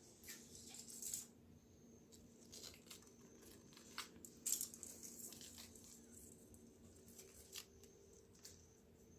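Faint, scattered rips and crinkles of white cloth tape and plastic film being handled, a handful of short sounds a second or more apart, the loudest about four and a half seconds in.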